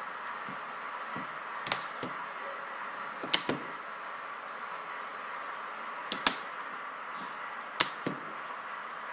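Sharp clicks, mostly in close pairs, four times over a steady hum.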